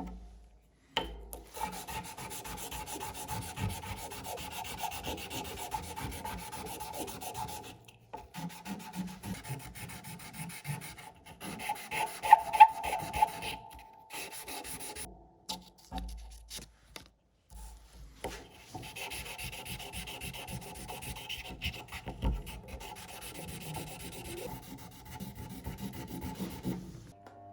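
Abrasive rubbing on the aluminium case of a WWII-era petrol lighter during hand restoration, a scratchy, uneven scraping in several stretches that stop abruptly, with a few louder strokes about halfway through.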